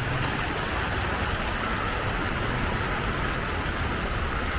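Steady heavy rain falling on a wet street, with a low rumble of idling vehicle engines underneath.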